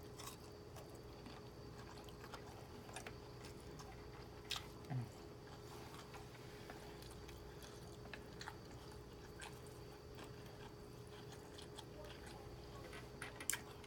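A person chewing food quietly, with scattered small clicks, over a steady electrical hum. A short low hum of the voice, falling in pitch, about five seconds in.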